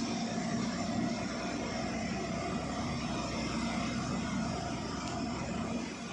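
A loaded truck's diesel engine running steadily at cruise, heard from inside the cab: a low drone under road and wind noise, easing slightly near the end.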